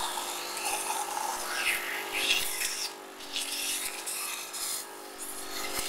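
Steady hum of a cough assist machine's blower, with irregular rubbing and scuffing noises over it.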